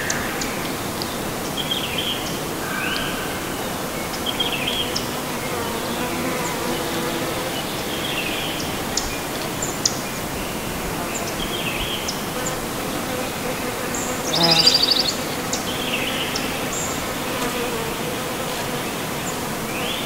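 Outdoor nature ambience: a steady rushing noise like running water, with scattered short bird chirps. An insect buzzes close by about fourteen and a half seconds in, the loudest moment.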